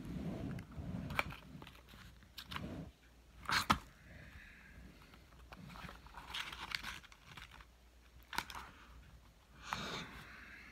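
A cardboard cigarette pack being handled: rustling and crinkling with several sharp clicks, the loudest about three and a half seconds in.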